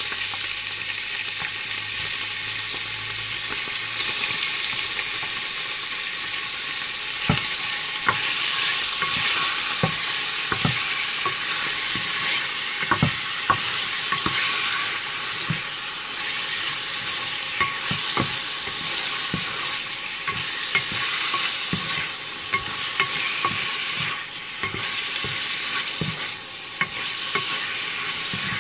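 Sliced turkey sizzling steadily in hot oil in a stainless steel pot. From about seven seconds in, a spatula stirring the meat adds scattered clicks and scrapes against the pan.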